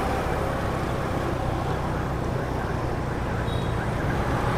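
Steady city street traffic noise: a continuous low hum of passing vehicles with no single event standing out.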